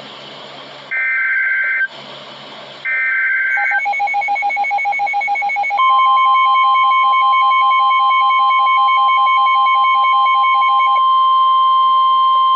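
NOAA Weather Radio EAS activation: two more bursts of the warbling SAME header data tones, each about a second long with hissy radio static between them. Then rapid electronic beeping starts, and about 6 s in the steady 1050 Hz weather-radio warning tone begins and holds, signalling an urgent warning: here a flash flood warning.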